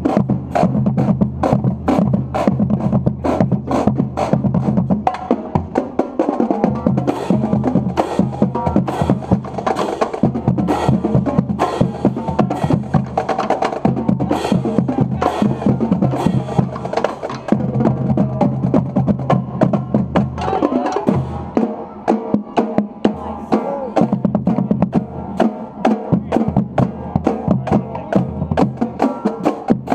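Marching band playing: brass over a drumline of snare drums and bass drums, with rapid sharp drum strokes throughout and sustained low brass notes underneath that drop out at times.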